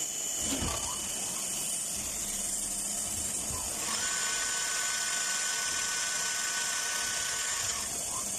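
Swiss-type CNC lathe running a machining cycle: a steady high hiss, with a high, even whine that comes in about four seconds in and holds for nearly four seconds, and a few soft knocks.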